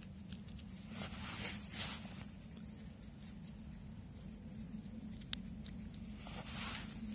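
Faint rustling and soft patter of gunpowder being sprinkled over a bundle of firecrackers, in a few short swishes with a small click about five seconds in.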